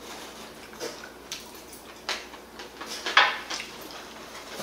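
Metal chopsticks and spoon clicking against a ceramic rice bowl and plates, a handful of separate light clinks with the loudest about three seconds in.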